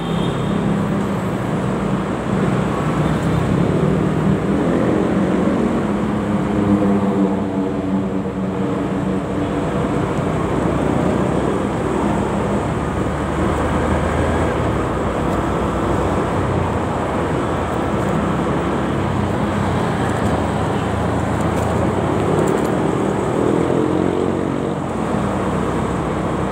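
Motorcycle ride through dense, slow city traffic: steady engine and road noise from the bike and the scooters and cars around it, with engine pitch rising and falling a few times as they pull away.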